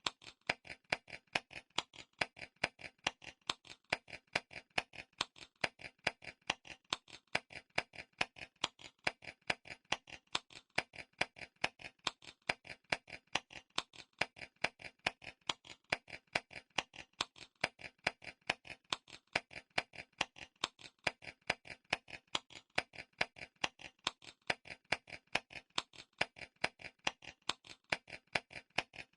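Clock timer ticking steadily and evenly, several ticks a second with louder and softer ticks alternating, with added reverb.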